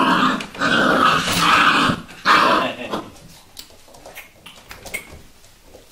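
Vizsla puppies growling in play: three loud growly bursts in the first three seconds, then quieter scrabbling and small knocks as they move about the whelping box.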